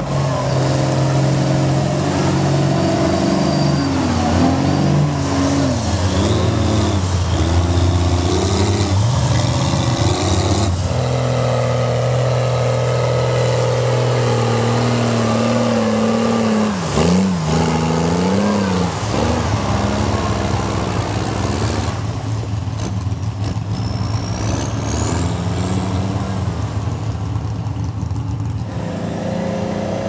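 Big engines of lifted mega trucks on tractor tyres revving up and down hard as they churn through mud. The sound changes abruptly a few times, moving from one truck to the next.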